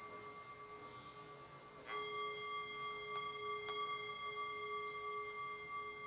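A struck bell tone ringing on several steady pitches. It is struck again about two seconds in and rings on. Two faint ticks come a little after the strike.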